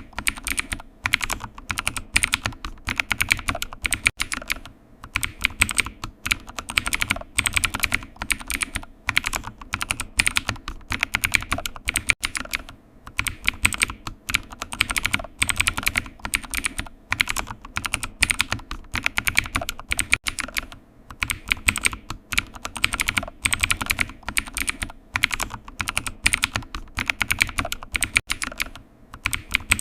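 Typing on a computer keyboard: a steady stream of key clicks in irregular bursts with brief pauses between them.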